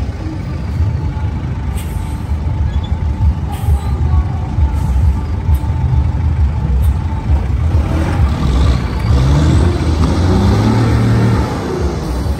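Diesel truck engines running as trucks drive slowly past. About eight seconds in, an engine gets louder and rises in pitch, then holds for a few seconds.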